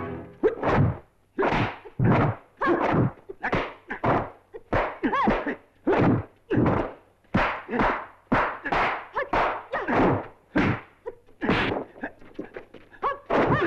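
Dubbed kung fu film punch and kick sound effects: a rapid string of sharp slapping thwacks, about two to three a second, each with a short ringing tail.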